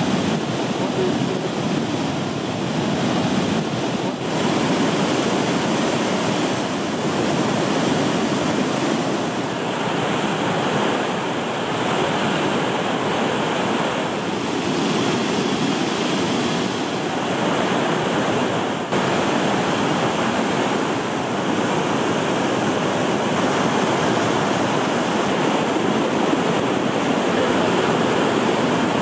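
The Hubelj river's spring in flood, swollen by heavy rain into a waterfall and whitewater cascade, rushing in a steady, dense wash of noise with two brief dips in level.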